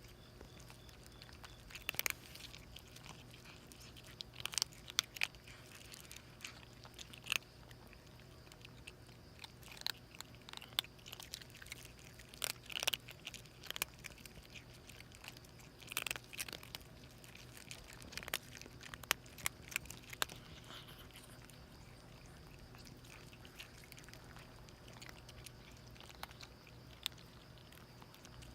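A stray mother cat and her kittens chewing food hungrily: irregular short crunches and clicks of eating, some in quick clusters.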